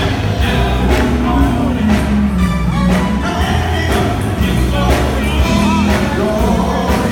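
Live gospel band playing, with a man singing into a microphone over electric guitar and drums and a heavy bass end.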